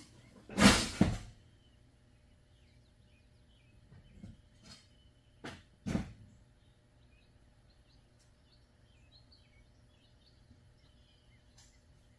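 Work noises on a riding lawnmower: one loud clattering knock about half a second in, then a few lighter knocks between four and six seconds in. Birds chirp faintly throughout.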